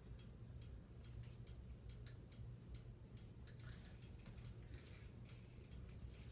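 Faint rapid ticking, about four ticks a second, over a steady low hum.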